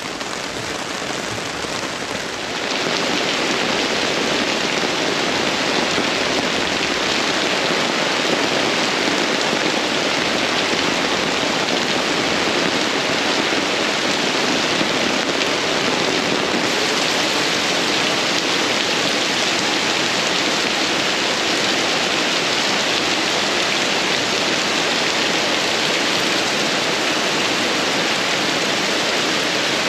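Heavy rain falling steadily, an even hiss of drops on the ground and surfaces, which gets louder about two and a half seconds in.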